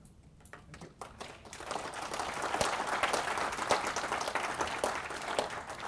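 Audience applauding, building up about a second in and thinning out near the end.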